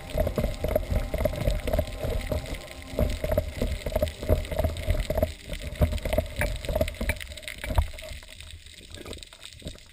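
Underwater sound through a chest-mounted GoPro housing as a spearfisher handles a speared fish: a low water rumble with many knocks and bumps against the housing, and a faint hum that pulses about three times a second. It thins out near the end.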